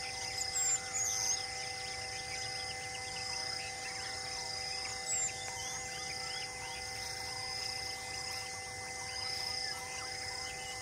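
Forest ambience: insects buzzing in a high, pulsing drone about once a second, with a few short bird chirps. Faint steady held tones run underneath.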